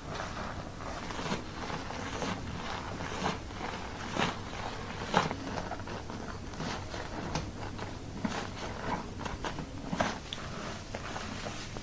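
Fingers scrubbing a shampoo-lathered scalp during a hair wash: a continuous run of short, irregular scratchy clicks, a few of them louder.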